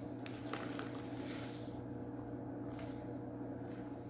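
Faint crinkling and light taps of plastic fish-shipping bags being handled during the first second and a half, over a steady low electrical hum.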